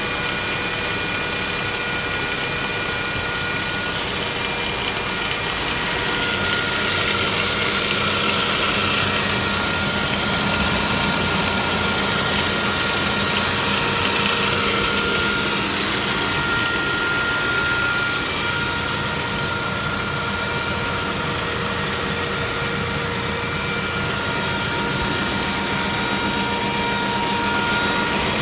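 Saab 9-5 Aero's 2.3-litre turbocharged four-cylinder engine running with a strange noise: steady whining tones over the engine sound, getting somewhat louder about six seconds in and easing off past the middle. The noise turned out to come from the water pump, though the Saab service first suspected the oil filter in the sump.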